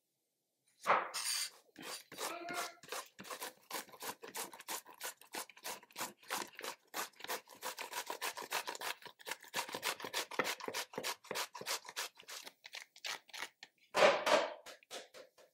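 Zucchini being grated on a hand grater with metal teeth: quick rasping strokes, about four a second, with louder strokes about a second in and again near the end.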